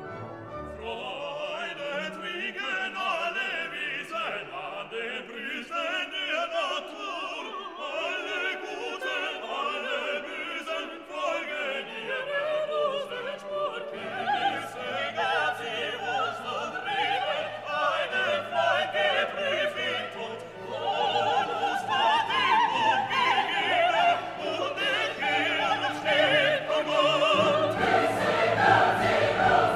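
Background music: a classical orchestral piece with singing.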